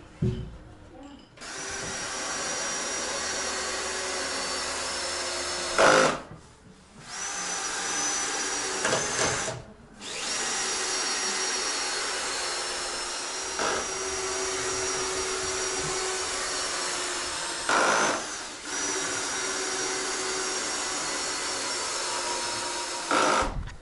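Handheld power tool motor running with a high whine in long steady stretches, stopping briefly about six and ten seconds in, with short louder moments about six, eighteen and twenty-three seconds in.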